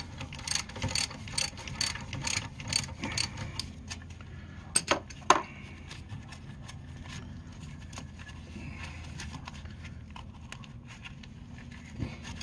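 Hand ratchet clicking in quick runs as a brake caliper bolt is backed out, with two louder metallic knocks about five seconds in.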